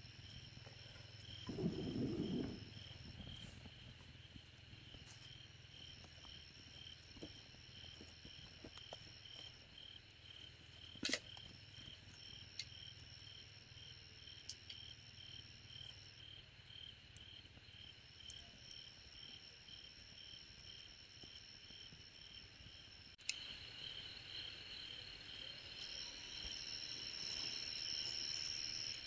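Night insects calling faintly: a cricket chirping evenly at about two to three chirps a second, with a second, higher insect trill that starts and stops. A brief low rush of sound about two seconds in and a couple of sharp clicks later.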